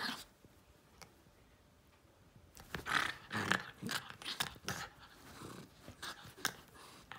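Jack Russell–fox terrier cross growling and snarling in play as it goes for a hand: a short snarl at the start, a pause, then repeated growls and snarls from about three seconds in.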